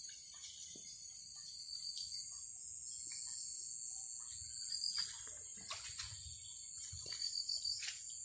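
Night insects calling in a steady high-pitched drone, with a second, lower trill that pulses at times, over faint rustling and steps in undergrowth.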